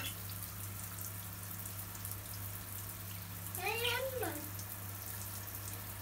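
Shower water spraying steadily down onto a budgie cage, over a steady low hum. About four seconds in, one short voice-like call rises and falls in pitch.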